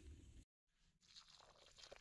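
Very faint: hands working loose soil, then a sudden drop to silence at a cut. Near the end, water starts to pour into a hole dug in the earth, with a faint splashing trickle that grows louder.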